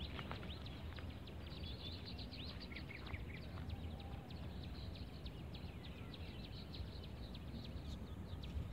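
Birds chirping: many short, quick calls, some with small pitch slides, over a low steady rumble.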